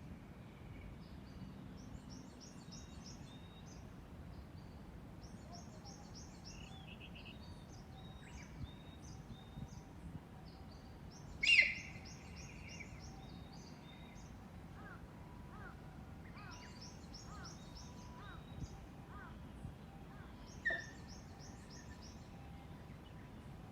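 Unidentified birds calling: a rapid high trill repeated in short bursts every few seconds, with short rising chirps between. A loud, sharp call with a held note comes about eleven seconds in, and a weaker one near twenty-one seconds.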